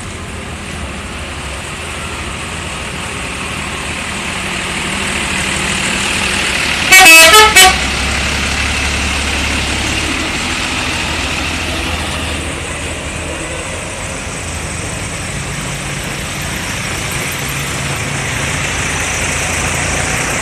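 Bus engines and traffic running steadily, and about seven seconds in a telolet horn, the multi-note musical horn of an Indonesian bus, blasts a quick run of notes lasting under a second.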